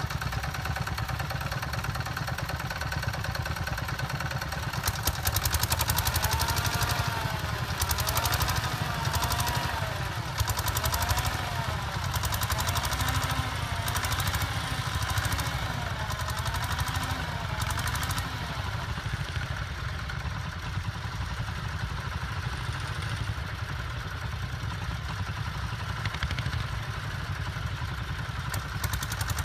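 Vintage tractor engine running steadily. For a stretch near the middle, a tone in it repeatedly rises and falls, about every second and a half, with some clatter.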